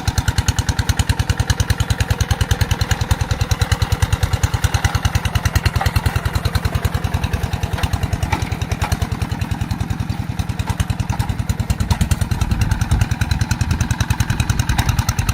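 Rice-field tractor engine running steadily with a fast, even chugging beat.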